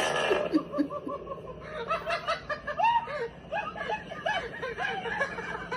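A person laughing: a quick run of short snickering giggles that starts about two seconds in.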